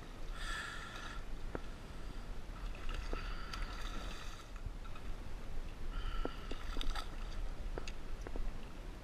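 A hooked kingfish thrashing and splashing at the surface beside a kayak, with three short bursts of a high, buzzing tone over the splashing, most likely the spinning reel's drag giving line as the fish surges. Sharp water slaps and clicks, over a low steady rumble of water and wind on the microphone.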